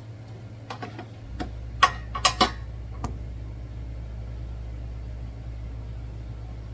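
A plastic spoon knocks and clatters against a speckled enamel canning pot of chunky salsa as it is stirred, a handful of sharp knocks with the loudest about two seconds in. A steady low hum starts just over a second in and carries on.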